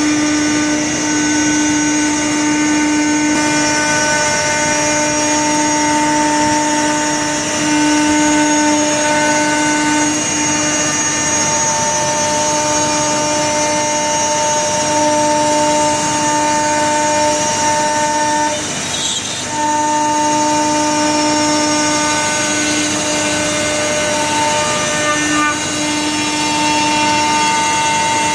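Practical CNC router's 1.7 kW spindle turning an 8 mm single-flute up-spiral carbide bit at 20,000 rpm, cutting through 1-inch HDPE sheet at 150 inches per minute, with the vacuum table's two Gast R7100 regenerative blowers running underneath. A loud, steady whine with several high tones that waver as the cut goes round, dipping briefly about two-thirds of the way in.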